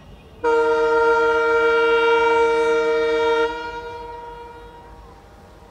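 Horn of an approaching inspection train: one long blast of about three seconds, a chord of several steady tones, that stops sharply and leaves a fading echo.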